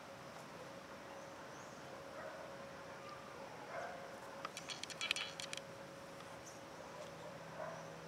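Birds calling in a garden at dawn: a few faint, short scattered calls, and about halfway through a quick rattling burst lasting about a second, the loudest sound. A faint steady tone runs underneath throughout.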